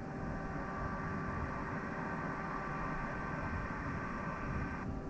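Steady background hiss and low hum with a few faint steady tones, typical of room noise; the higher part of the hiss cuts off abruptly near the end.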